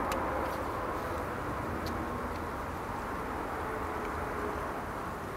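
Distant steady roar of an Airbus A350's Rolls-Royce Trent XWB jet engines as the airliner rolls along the runway, slowly getting quieter.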